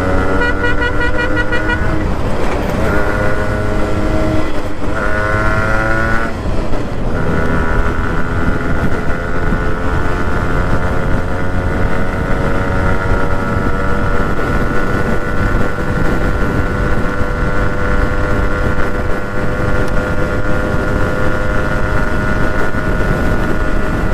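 Yamaha RX 100's two-stroke single-cylinder engine accelerating through the gears: its pitch rises and drops back at three gear changes in the first seven seconds, then holds a steady cruise with wind and road rumble underneath.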